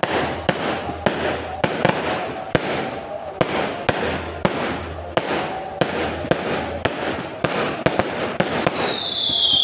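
Aerial fireworks bursting in quick succession, sharp bangs about twice a second over a steady crackle of sparks. Near the end a high whistle comes in and falls slightly in pitch.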